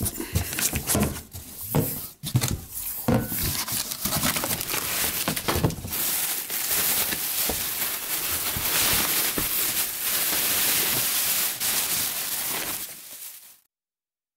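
Plastic wrapping crinkling and rustling as a boxed alloy wheel is unwrapped by hand, with cardboard and packaging being handled. The crinkling turns dense and continuous about halfway through, close to the microphone, then cuts off suddenly near the end.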